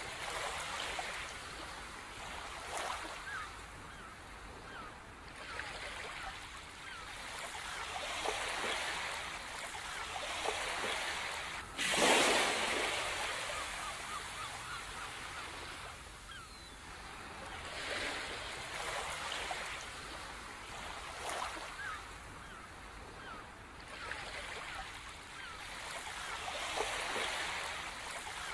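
Sea waves washing in and drawing back, each swell rising and fading over a few seconds, with the biggest wave breaking about twelve seconds in. Faint bird calls come through in the background.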